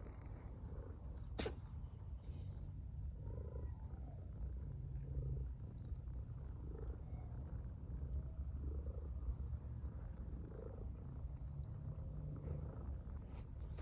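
A cat purring steadily, the purr swelling softly with each breath, broken by one short, sharp sneeze about a second and a half in.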